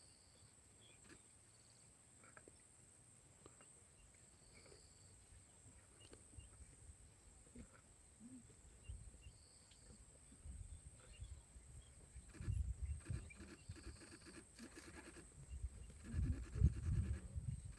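Lions feeding on a buffalo carcass: irregular low rumbling noises that start about halfway and come in louder spells near the end, over a steady high insect drone with faint chirps.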